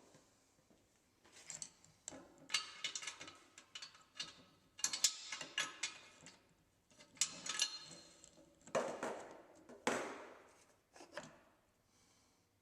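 Metal tools and engine parts clinking, clattering and scraping in a small workshop, in irregular bursts with a couple of longer scrapes near the end.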